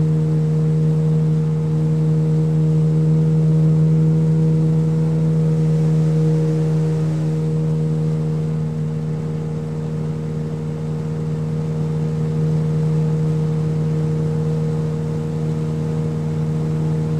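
Motorboat engine running at a steady speed: an even, low drone that swells and eases slightly in loudness.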